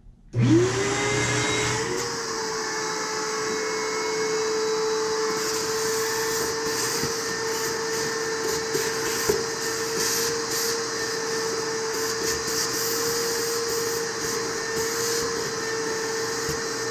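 Vacuum cleaner switched on about half a second in: its motor whine climbs quickly to a steady pitch, over the hiss of air rushing through the hose. The hose is sucking leaves and debris out of a car's engine air-filter box, with a few brief clicks along the way.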